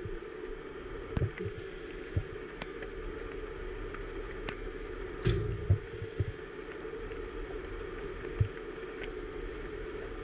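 Heavy truck diesel engine running with a steady low hum, with a few sharp knocks and clinks scattered through; the loudest cluster comes about five seconds in.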